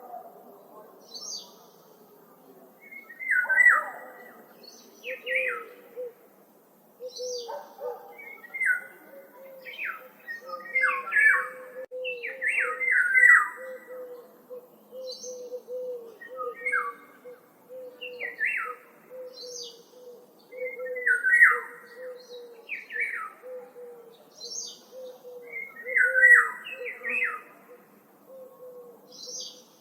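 Several woodland birds calling: short calls repeated every second or two, with thinner, higher notes above them. From about five seconds in, a low note repeats rapidly and steadily underneath.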